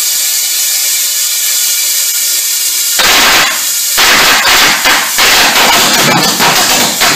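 Small homemade propane pulse detonation engine: a loud steady hiss with a whistling tone as its air feed flows, then about three seconds in it lights and fires a fast, ragged string of sharp detonations.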